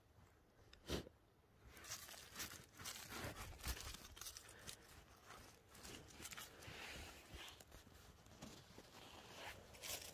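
Faint crackling and rustling of dry leaves and twigs on the forest floor as a hand brushes through the litter, after a single sharp click about a second in.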